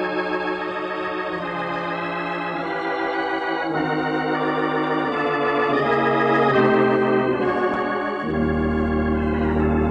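Organ music bridge between radio-drama scenes: a run of held chords that change about every second, with a deep bass chord coming in near the end as the music starts to fade.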